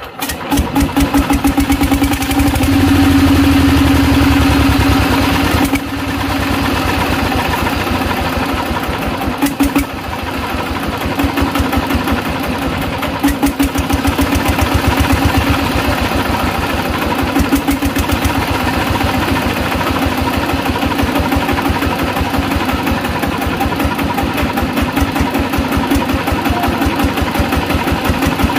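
Changfa 1115 single-cylinder diesel engine running steadily after repair, with rapid, even firing beats; it picks up in the first second and is loudest over the first few seconds.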